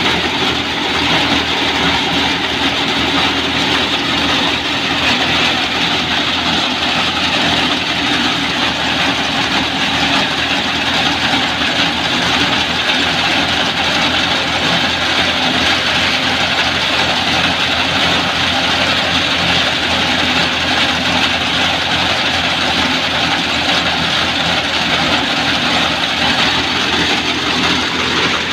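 Wheat thresher running steadily with the tractor that powers it: an even engine hum under the continuous noise of the threshing drum and blower.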